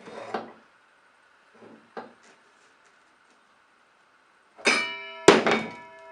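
A metal object struck twice, sharply, a little over half a second apart near the end, each strike leaving a clear metallic ring that dies away slowly; a few softer knocks come before.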